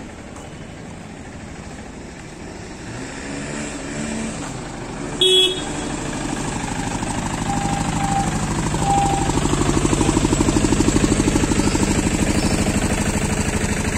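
Street traffic: a short vehicle horn toot about five seconds in, then a motor vehicle's engine running close by, getting steadily louder.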